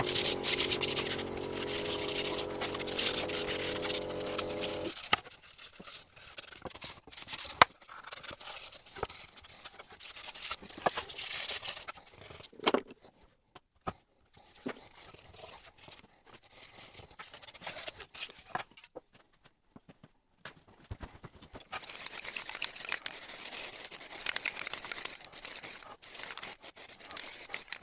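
Steady low hum that cuts off suddenly about five seconds in, followed by scattered scraping and rubbing of hand work on a small wooden piece, with occasional sharp ticks.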